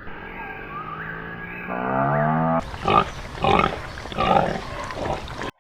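A pig grunting, four short grunts a little over half a second apart in the second half, after a drawn-out low animal call.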